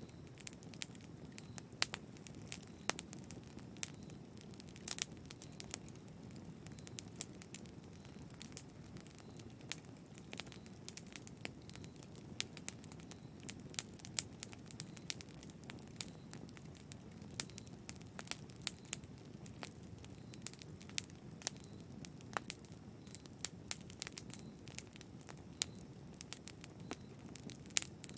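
Wood fire in a fireplace crackling: frequent irregular sharp pops and snaps over a steady low rumble of burning flames.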